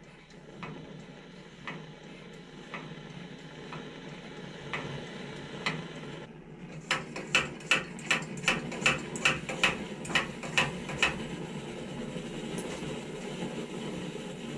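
Paraffin blowtorch running with a steady rushing noise that grows louder, while a hammer taps a punch to drive the chilled bearings into the heated live-centre housing: light taps about once a second at first, then about halfway in a quick run of about a dozen sharper blows.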